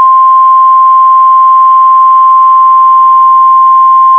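Loud, steady single alert tone just above 1 kHz, held without a break: the NOAA Weather Radio 1050 Hz warning alarm tone that comes before a National Weather Service warning. It plays over a hissy, narrow radio channel.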